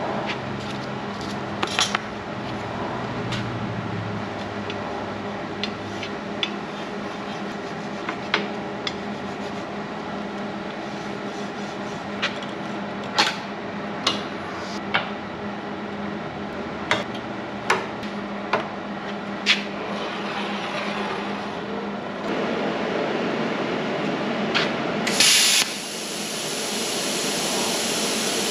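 Steel pieces and locking clamps clinking and clanking on a steel welding table, a dozen or so sharp knocks over a steady shop hum. Near the end, a loud burst of air hiss and then a steadier hiss.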